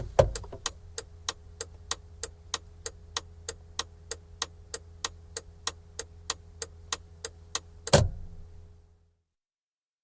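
Car turn-signal stalk flicked on with a loud click, then the indicator ticking evenly at about three clicks a second, until the stalk is snapped back with another loud click about eight seconds in. A low steady engine hum sits underneath and dies away a second later.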